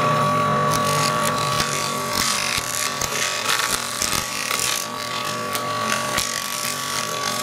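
A sheet of paper being dragged through a pair of spinning 3D-printed plastic gears, crumpling and rasping in a dense, irregular crackle. A steady high-pitched whine runs underneath.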